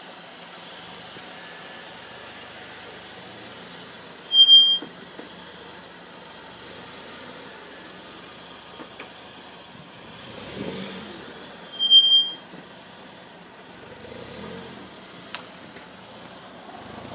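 Steady outdoor background noise beside a railway line, broken twice by a short, loud, high-pitched beep about seven seconds apart. Near the end the rumble of an approaching train begins to rise.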